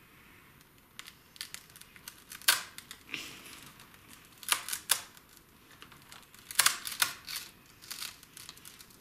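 Sharp, irregular snips and snaps of a cutting blade working through the stalk of a broken bird of paradise leaf, with crinkling of the leaf in between. The loudest snips come about two and a half seconds in and in pairs around the middle.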